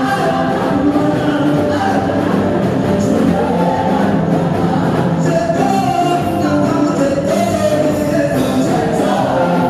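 Live gospel praise song: a male lead singer and a group of backing singers singing together over band accompaniment, continuous and steady in loudness.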